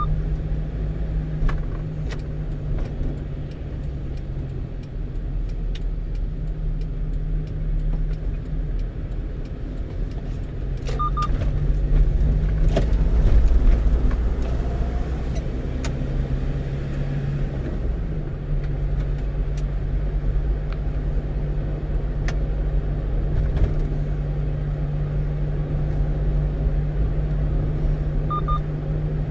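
A one-ton truck's engine and road noise heard from inside the cab while driving. The engine note shifts and grows louder around the middle. A short double electronic beep sounds twice, once near the middle and once near the end.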